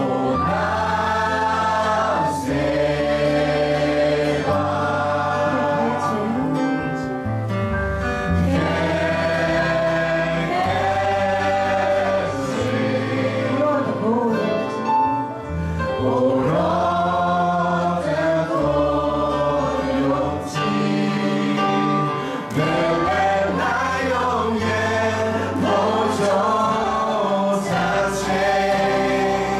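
Christian worship song sung by a man and a woman together, over acoustic guitar, bass guitar and keyboard accompaniment, with the bass and chords changing every couple of seconds.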